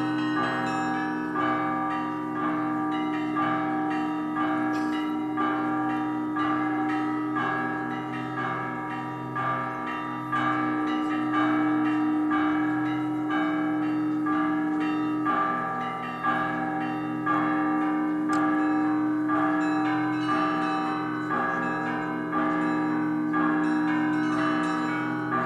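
Festive Russian Orthodox monastery bell ringing: a set of fixed bells struck by their clappers. Smaller bells chime in a steady, quick rhythm over the long ringing of the deeper bells.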